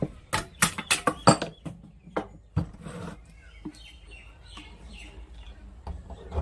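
A quick series of sharp clicks and knocks, then quieter scattered handling noise, as the cover of an electric motor that won't start is taken off.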